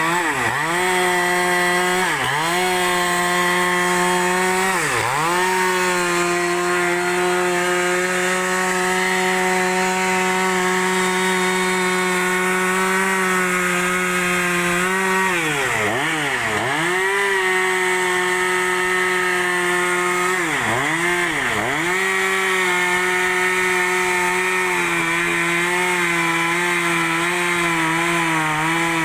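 Two-stroke chainsaw running at high revs while ripping a large log along its length. Its pitch dips briefly and picks straight back up several times, twice in quick succession near the middle.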